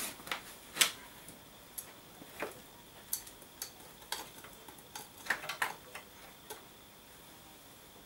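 Scattered small metal clicks and light knocks as parts at a Yamaha XT trail bike's rear wheel hub are handled, irregular and about a dozen in number, the loudest about a second in, dying away after about six and a half seconds.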